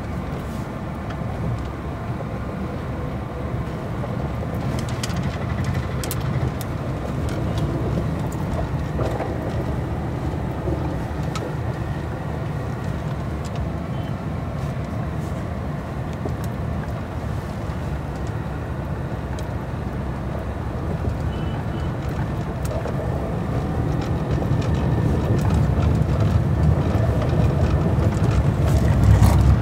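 Steady low rumble of a car driving, heard from inside the cabin, growing louder over the last few seconds.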